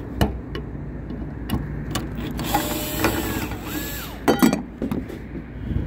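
Cordless drill with a Phillips bit backing out a screw on an exhaust fan's electrical box cover: the motor whines up and down in two short runs about halfway through, followed by a brief sharp metallic clatter. A few knocks and a steady low hum are also heard.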